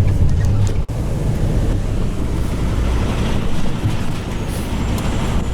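Semi truck's diesel engine running with a steady low rumble, heard from inside the cab. The sound cuts out briefly just under a second in.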